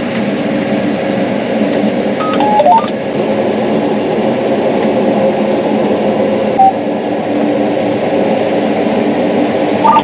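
Combine harvester running steadily, heard from inside the cab as a steady mechanical drone with a few held tones. A few short electronic beeps come about two seconds in, and one more comes a little past the middle.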